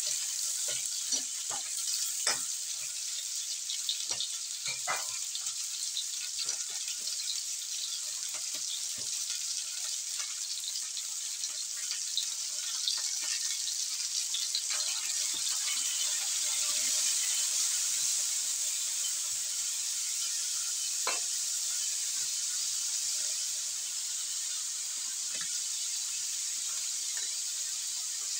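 Chicken feet sizzling steadily as they fry in a hot wok, with clicks and scrapes of metal utensils turning them against the pan, most of them in the first ten seconds or so.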